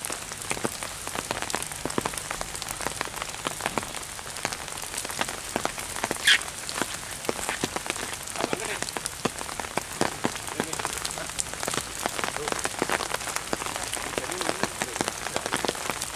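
Steady crackling patter of rain on foliage. About six seconds in there is one short, loud high squeal that falls in pitch.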